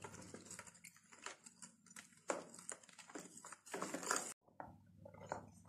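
Wooden spoon stirring a milk-and-oil liquid in a plastic mixing bowl, with irregular light clicks and taps of the spoon against the bowl. The sound cuts off suddenly a little after four seconds in, leaving only faint scattered ticks.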